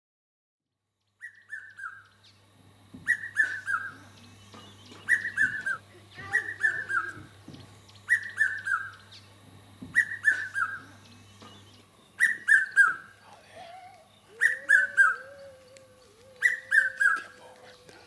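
Red-chested cuckoo calling its three-note "piet-my-vrou" phrase, each note lower than the last, repeated about every two seconds, nine times.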